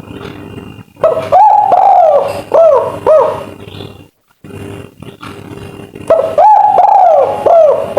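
Spotted dove cooing its 'kuk 3' song: two phrases, each a run of short rising-and-falling coos, the first about a second in and the second starting near six seconds, over a steady background hum.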